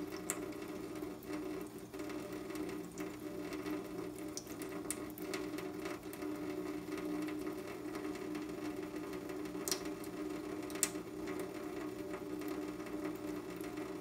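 Kitchen faucet running a thin stream into a stainless steel sink, a steady sound with a low hum in it. Two sharp clicks come about ten and eleven seconds in.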